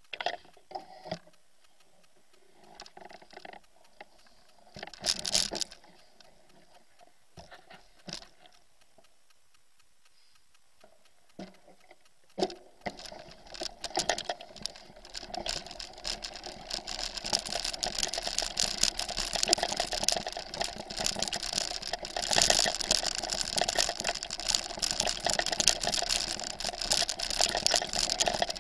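Bicycle and its handlebar-mounted camera rattling over a rough track: scattered knocks and clatters at first, then from about halfway through a continuous dense rattle of tyres and frame over grass and dirt that grows louder.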